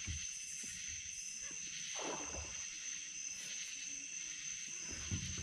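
Steady high-pitched chorus of night insects, with one brief falling swish about two seconds in.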